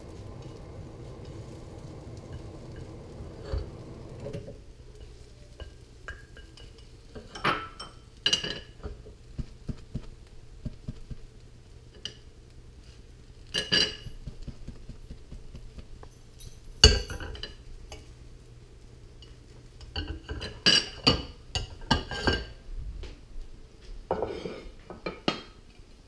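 Nonstick skillet and nylon fork knocking and clinking as a French omelette is folded and the pan handle is tapped to roll it over: scattered sharp taps, some in quick runs, the loudest about seventeen seconds in. A low steady background noise underneath stops about four seconds in.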